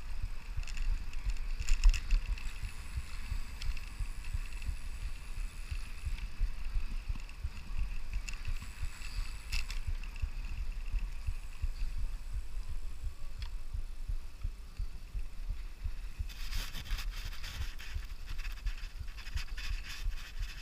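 Wind buffeting the microphone of a handlebar-mounted camera while a Brompton folding bicycle is ridden, with faint clicks and rattles from the bike. A louder hiss with rattling comes in about three-quarters of the way through.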